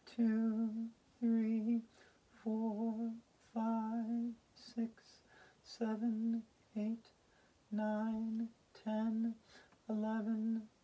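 A woman's voice sounding short notes, all at the same steady pitch, about once a second, roughly ten in all: a slow, sing-song hummed count while a yoga pose is held.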